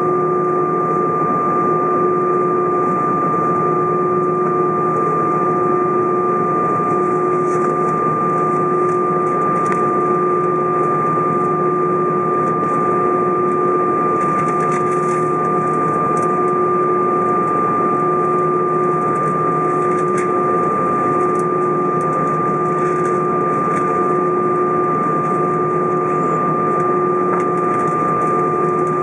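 Cabin noise inside an Airbus A320 on the ground, its jet engines idling: a steady hum with two steady high whining tones, and a lower tone that pulses about once a second.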